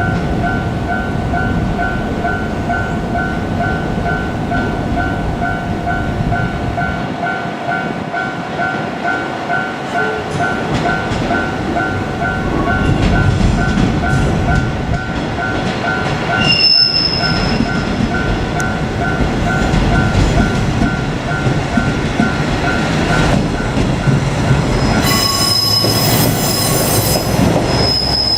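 Japanese level-crossing warning bell ringing in quick, even pulses while a KiHa 147 diesel railcar runs through with a rumble of engine and wheels that grows louder partway in. The bell stops late on, and near the end the wheels give a high, ringing squeal.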